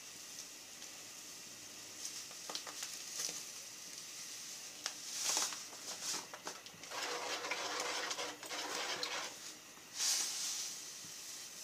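Metal ladle stirring a pot of corn in coconut milk as sugar is stirred in, with a few light clinks and short rustles and a longer stretch of swishing past the middle.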